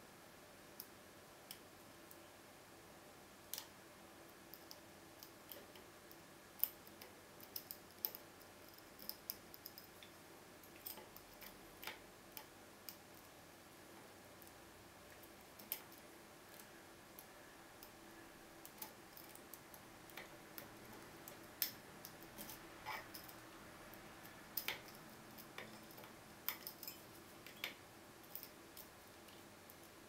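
Small, irregular metallic clicks and ticks of a lock pick working the pin stacks of a Keso 2000 S security cylinder held under tension, a few clicks louder than the rest.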